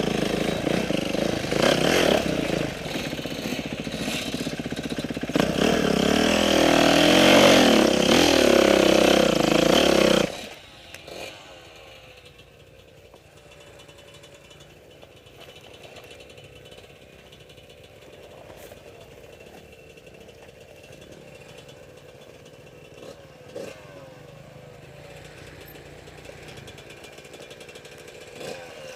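Off-road motorcycle engine running loudly with revs rising and falling for about ten seconds, then cutting off suddenly; after that a faint, steady engine hum and a few light knocks remain.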